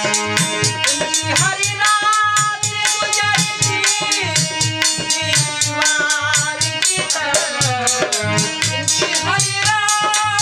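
Live ghazal accompaniment: a harmonium holds steady chords while a dholak drum beats a steady rhythm and a jingling metal percussion instrument keeps quick, even time. Male voices sing gliding phrases over it.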